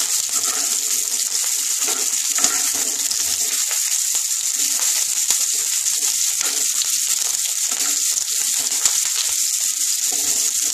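Boiled cauliflower florets sizzling steadily as they fry in hot mustard oil in a kadai, with a wooden spatula now and then scraping and turning them.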